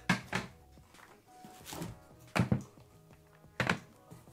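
A few sharp thunks and knocks as boxed bullion and packaging are handled and set down on a table: two quick ones at the start, a pair a little past halfway, and another near the end.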